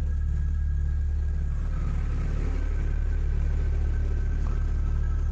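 A steady low rumble that holds at one level throughout, with no distinct events.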